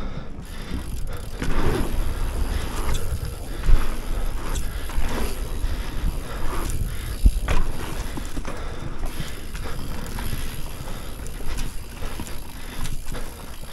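Mountain bike being ridden on a dirt pump track: a steady rumble of tyres on dirt and air over the microphone, with the bike rattling. Sharp knocks stand out about four and seven seconds in.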